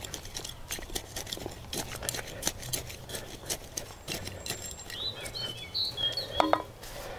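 Hand planting in garden soil, likely with a trowel: a continuous run of small gritty scrapes and clicks. A small bird chirps briefly about five seconds in, and there is a short louder clunk a little after six seconds.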